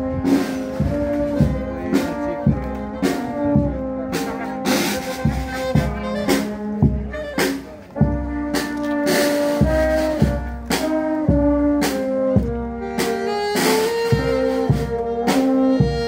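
Brass band playing a melody of held notes over regular percussion strokes on the beat.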